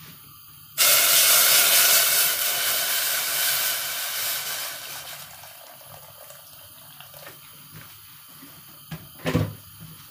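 Water poured from a jug into an empty stainless steel saucepan: a loud splashing gush starts suddenly about a second in and grows softer as the pan fills, ending about halfway through. A short knock comes near the end.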